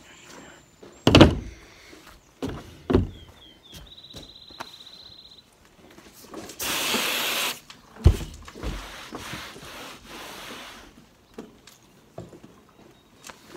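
Handling knocks and thumps on the processing table, the loudest about a second in. About halfway through, a hose's pistol-grip spray nozzle gives roughly a second of hissing water spray. A high rapid trill is heard for about two seconds before the spray.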